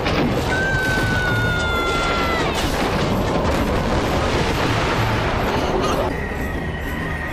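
Cartoon storm sound effects: a dense rush of wind with crashing, booming debris as a storm cloud wrecks a room, over dramatic music. A long, slightly falling high tone sounds in the first couple of seconds, and a steady high tone comes in about six seconds in as the storm noise drops.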